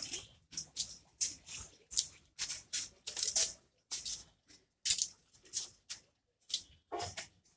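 Hands working wet clay onto a clay idol: irregular short rubbing and slapping scrapes, about two a second, with brief pauses between strokes.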